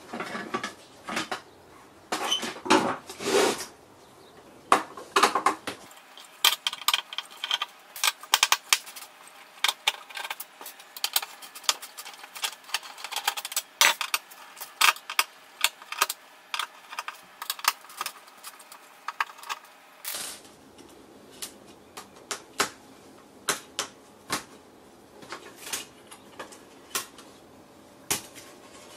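Screwdriver and small screws clicking and clinking against the metal backplate and circuit board of an LCD panel while the T-con board is unscrewed: many sharp, irregular clicks and taps.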